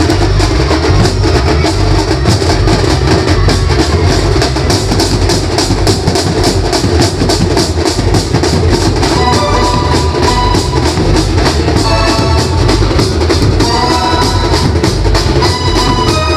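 Maharashtrian banjo band playing loud, fast, dense drumming, with a high melodic line joining about halfway through.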